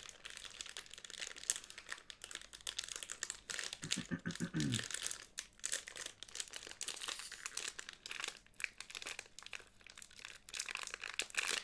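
Crinkly plastic wrapper of a chocolate-chip cookie packet being crumpled and pulled at by hand and with the teeth as he struggles to tear it open, making steady crackling throughout.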